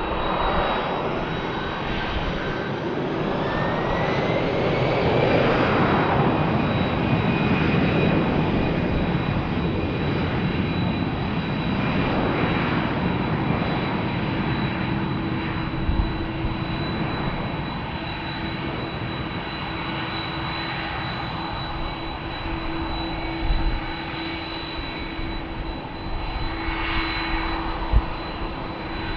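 Airbus A320's twin CFM56 turbofans spooling up for takeoff, a whine rising in pitch over the first few seconds under the jet noise. Then steady jet engine noise that slowly fades as the airliner rolls away down the runway, with a few brief knocks in the later part.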